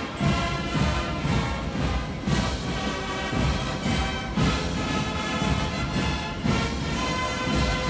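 A massed military brass band playing a march, with trumpets and tubas over a steady drum beat of about two strokes a second.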